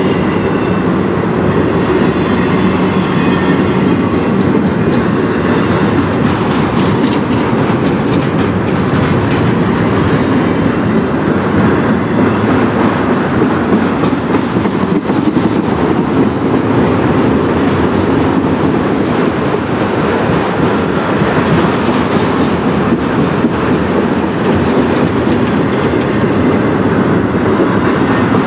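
Freight train of enclosed autorack cars rolling past close by: steel wheels on the rails make a steady, loud rumble throughout.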